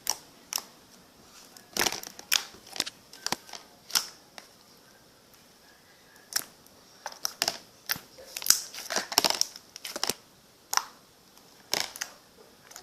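Sticky homemade glue slime being stretched and squished by hand, giving irregular sharp clicks and pops.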